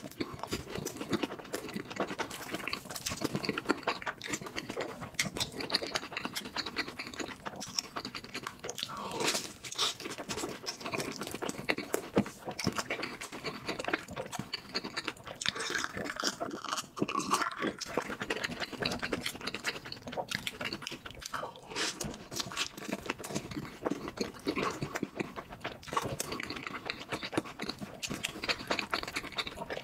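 Crunching and chewing of a fried, potato-cube-coated corn dog: crisp bites followed by steady, irregular chewing.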